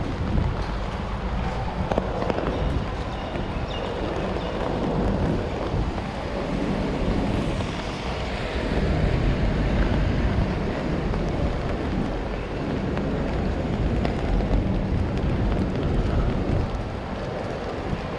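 Wet city street ambience: a steady wash of traffic noise with a heavy low rumble. A vehicle's noise swells and passes about eight seconds in.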